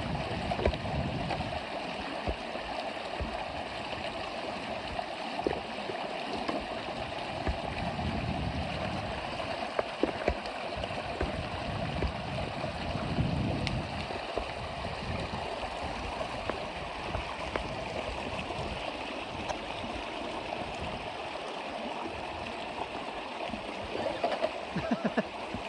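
Shallow creek water running steadily over rocks, a continuous rushing and gurgling with a few small knocks scattered through it.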